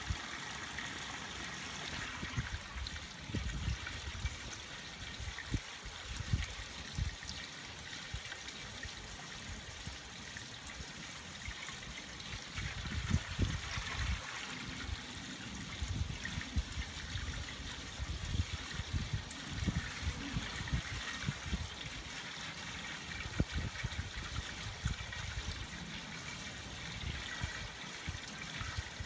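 Thin stream of water falling from an artificial rock waterfall into a swimming pool, splashing and trickling steadily.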